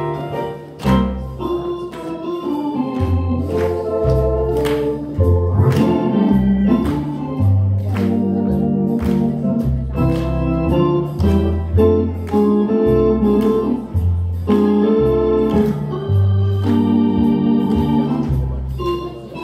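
Hammond organ playing a tune, sustained chords over low bass notes that change about once a second, with sharp attacks on many of the notes.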